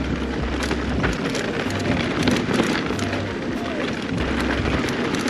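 Mountain bike rolling fast down a dirt trail: a steady rush of tyre noise over loose dirt and gravel, full of small crackles and rattles.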